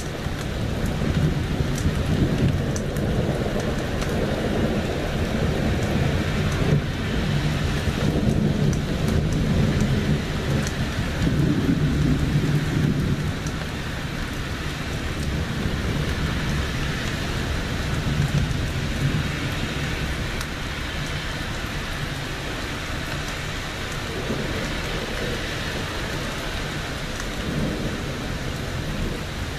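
Steady heavy rain with thunder rumbling low and long through the first half, the rumble easing off about halfway through while the rain keeps on.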